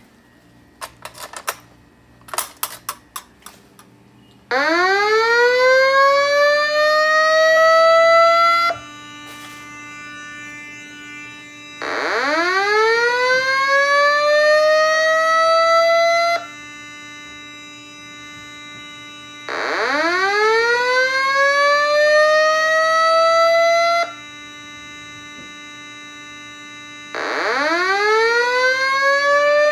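Simplex 2120 voice evacuation system sounding its slow-whoop tone through fire alarm speakers: a loud rising sweep about four seconds long that cuts off abruptly, repeated about every seven and a half seconds, with no voice message between the sweeps. The missing message is a glitch the owner fears means the 2120 is on its way out. A few sharp clicks come just before the first sweep.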